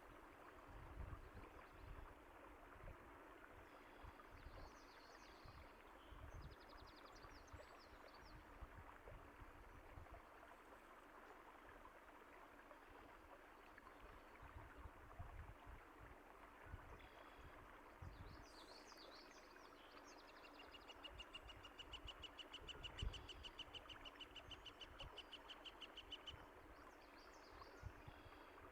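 Faint steady rush of flowing water with low gurgles, and small birds chirping now and then. About two-thirds of the way through, one bird gives a rapid high trill that lasts several seconds.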